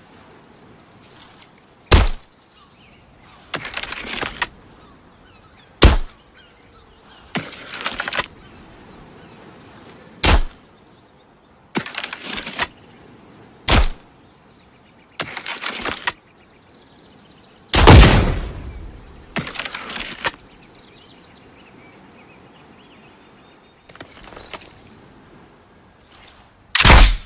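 Slingbow being shot over and over: about six sharp snaps a few seconds apart, most followed about a second and a half later by a rougher, noisier sound lasting about a second.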